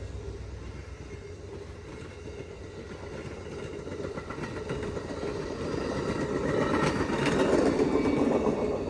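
Amtrak passenger train rolling along the rails, a steady rumble and wheel clatter that grows louder through the second half and is loudest near the end.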